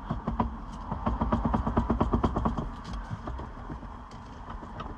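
Lexus SC300 steering wheel being shaken hard on its splined column against the loosened retaining bolt, clunking and rattling in quick repeated knocks. The knocks are loudest about a second in and thin out near the end, as the wheel works loose.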